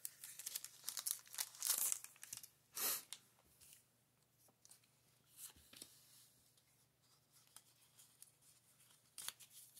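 Foil Pokémon booster pack wrapper crinkling in the hands as the cards are slid out of the opened pack, in short rustling bursts over the first three seconds, then only a few faint rustles of card handling.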